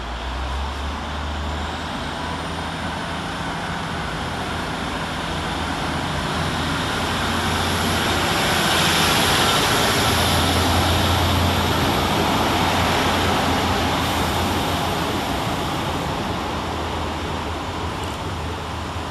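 Transport for Wales Class 150 Sprinter diesel multiple unit pulling out under power. The drone of its underfloor Cummins diesel engines builds as the train passes close by, loudest around nine to twelve seconds in, then fades as it draws away.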